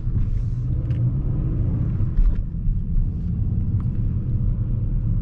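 Steady low rumble inside the cabin of a 2003 BMW E46 with a 2.2-litre petrol inline-six, driving slowly: engine and drivetrain noise, with a brief low thump about two seconds in.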